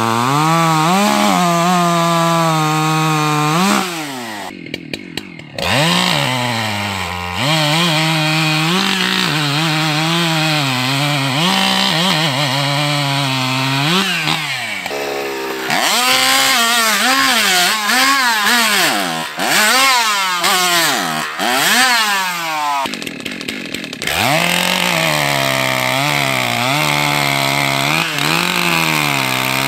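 Unlimited-class racing chainsaws cutting through a timber at full throttle. The engine pitch repeatedly sags as the chain loads up in the wood and climbs again as each cut clears.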